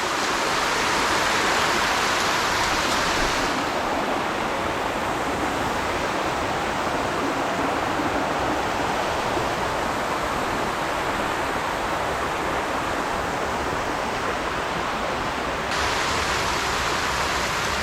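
Steady rush of a small waterfall cascading over boulders in a canyon creek running high after heavy rain.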